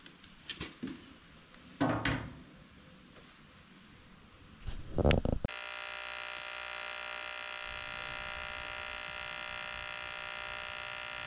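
A few short knocks and scrapes as a plastic RV window is handled, then, about halfway through, the ARCCAPTAIN 200P AC/DC TIG welder's arc starts and buzzes steadily and evenly on the aluminum camper frame.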